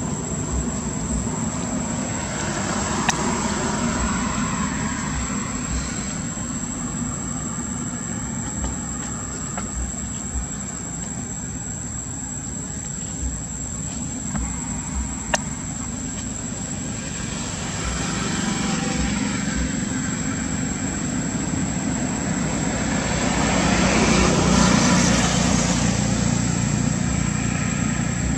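Steady outdoor background rumble and hiss with a thin steady high tone, swelling louder near the middle and again near the end; two faint sharp clicks stand out, one about three seconds in and one about halfway.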